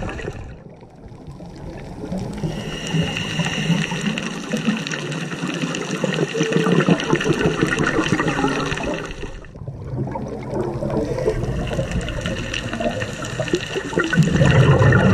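Scuba regulator breathing underwater: a hissing draw of air and the bubbling of exhaled air, with two short pauses and the bubbles loudest near the end.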